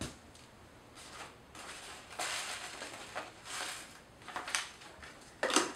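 Thin plastic food bag crinkling in several short rustles, about a second apart, as a teaspoon of dried onion flakes is tipped and shaken into it, after a short click at the start.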